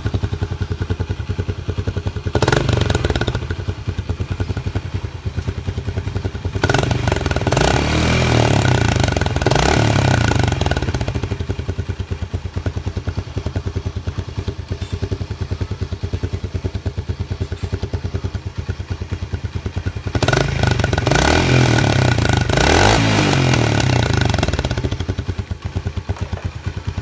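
Small single-cylinder underbone motorcycle engine running, its exhaust blowing into an empty soda can fixed at the muffler outlet. It idles with a fast pulsing beat and is revved up and back down three times: briefly about two seconds in, then longer near the middle and again towards the end.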